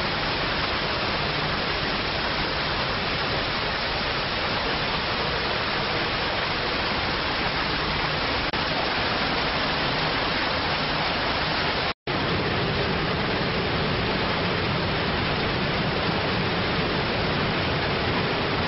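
Floating micro-bubble generator running in a water tank: a steady rushing hiss of churned water and air, with a faint low hum underneath. The sound cuts out for an instant about twelve seconds in, then carries on.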